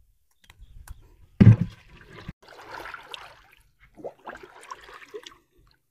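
Water splashing and sloshing, with one loud, heavy splash about a second and a half in.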